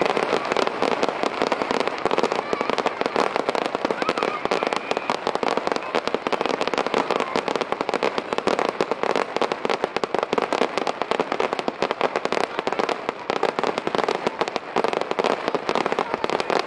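Fireworks barrage: many small shells launched and bursting in quick succession, a dense, continuous popping and crackling.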